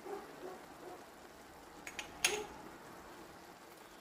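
Faint sizzle of chicken breast and onions frying in a pan. A sharp click comes a little after two seconds in.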